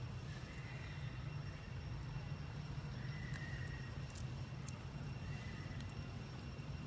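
Steady low outdoor rumble with a faint short high call about every two and a half seconds, and a few tiny ticks in the middle.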